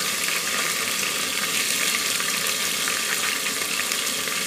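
Chopped onions frying in hot oil in an open aluminium pressure cooker, a steady sizzle with fine crackles.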